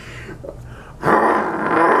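A man's mouth-and-throat sound effect, made with a hand cupped over the mouth: after a quiet first second, a loud, rough, unpitched rasp starts about a second in and carries on.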